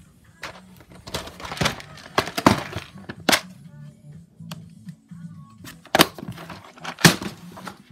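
Plastic storage boxes and a clear-lidded compartment organizer case of Lego bricks being handled: irregular bursts of plastic rattling and scraping with several sharp clicks.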